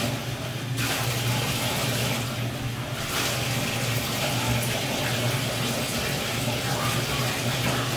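Bathtub tap running steadily into the tub while a dog is rinsed with water poured from a plastic cup.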